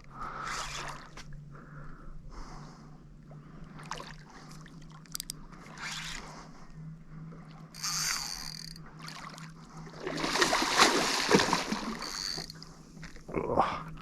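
Water splashing as a hooked fish, over a metre long, thrashes at the surface during the fight, loudest in a long burst near the end.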